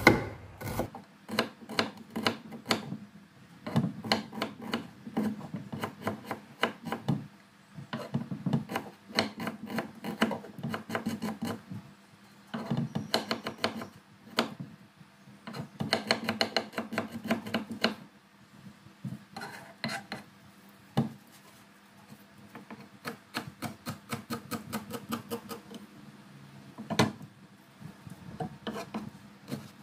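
Kitchen knife slicing shallots and chopping herbs on a wooden cutting board: runs of quick taps with short pauses between, and one louder knock near the end.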